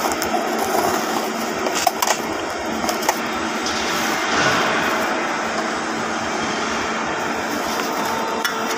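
Steady fabrication-shop background noise, with a few light metallic clinks about two and three seconds in.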